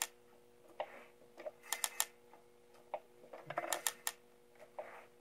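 Sharp metallic clicks of a single-stage bandsaw tooth setter as its lever handle is worked, indexing along a sawmill band blade and setting the teeth. The clicks come in small groups with short pauses between.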